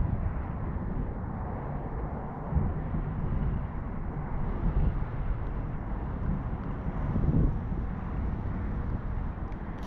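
Wind buffeting the microphone outdoors: a low, uneven rumble that rises and falls without any steady tone.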